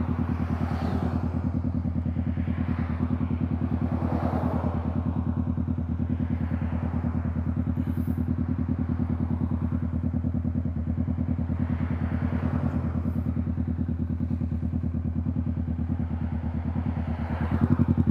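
Yamaha motorcycle engine running steadily under way, getting louder near the end.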